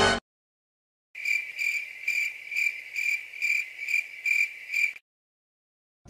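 Crickets chirping sound effect: a high, thin chirp repeating about twice a second, starting about a second in and stopping about a second before the end.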